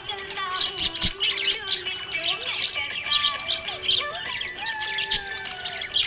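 Small pet parrots chirping and twittering rapidly: many short high chirps overlapping, mixed with longer sliding whistles.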